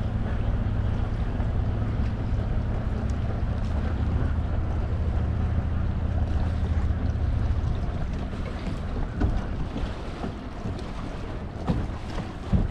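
Bass boat's outboard motor running at low speed, a steady low hum with wind on the microphone. The hum fades about eight seconds in, leaving wind and water noise with a few knocks near the end.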